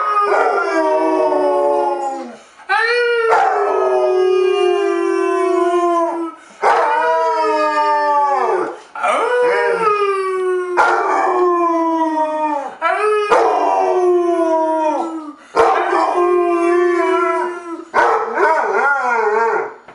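Basset hound howling: a run of long howls, one every two to three seconds, each falling in pitch. A man howls along with it.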